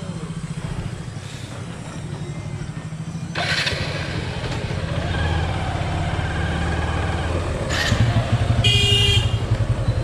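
Hero Hunk's single-cylinder 150 cc engine running at low speed as the motorcycle rolls forward, picking up slightly near the end. A vehicle horn toots once, briefly, about a second before the end.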